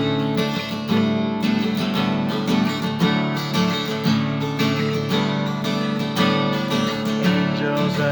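Acoustic guitar strumming chords in a steady rhythm, an instrumental passage of a hymn accompaniment.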